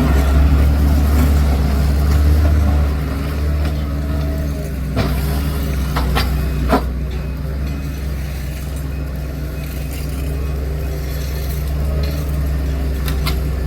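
A large engine running steadily, a little louder for the first few seconds, with a few sharp clanks about five to seven seconds in.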